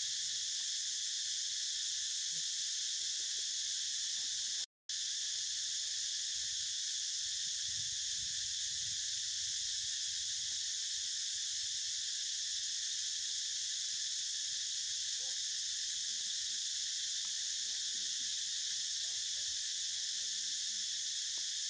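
Steady, high-pitched insect chorus, unchanging in level, broken by a moment's silence about five seconds in.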